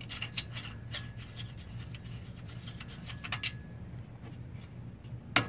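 Faint rubbing and scraping with scattered light clicks as a hand works the metal axle in its bracket on a Truper dual-wheel wheelbarrow, with a sharp click about half a second in and a louder one near the end.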